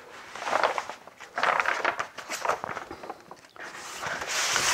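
Sheets of paper rustling and being shuffled as they are handled, in irregular bursts with small clicks, loudest near the end.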